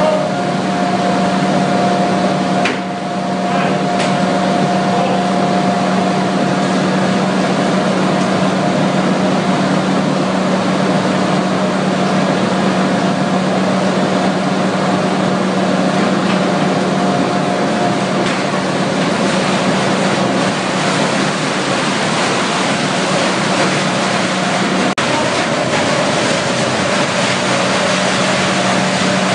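Gruendler industrial paper shredder and its infeed conveyor running: a loud, even machine drone with a constant hum.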